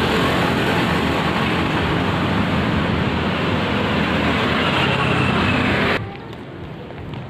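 Steady road traffic noise from passing cars and motorcycles, which drops off abruptly about six seconds in.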